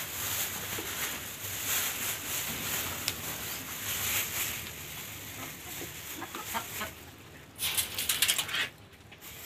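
Domestic chickens clucking in a wire pen as they feed on scattered rice, with a short, loud burst of rustling about three-quarters of the way through.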